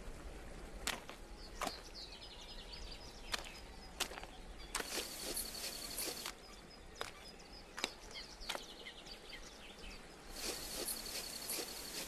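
Long-eared hedgehog moving over dry twigs and gravel, sharp clicks and snaps about a second apart. Around five seconds in, and again near the end, a high insect buzz joins.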